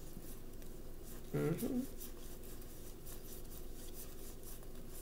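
Quiet room tone with a steady low hum; about a second and a half in, a short low murmur from a person's voice, in two quick parts.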